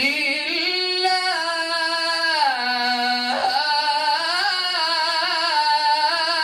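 A male Quran reciter chanting in melodic tajwid style, drawing out the phrase "ila dhikri Allah" as one long ornamented line. The melody climbs and falls, catches briefly about halfway, and stops near the end.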